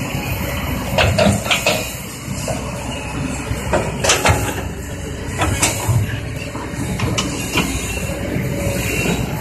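Kobelco tracked excavator's diesel engine running steadily, with a series of sharp knocks and clanks from the machine at work.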